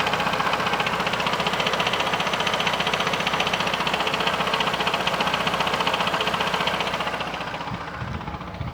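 2013 Chevrolet Corsa Classic idling in neutral with the clutch engaged, a rapid, even clatter coming from the gearbox area. The noise goes away when the clutch pedal is pressed, which the mechanic takes as ruling out the clutch release bearing and pointing to the clutch or the gearbox itself. It fades slightly near the end.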